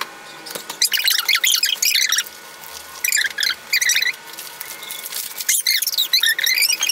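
Fast-forwarded sound: a voice and the handling of paper parcels played back at high speed, pitched up into short runs of high, squeaky chirps.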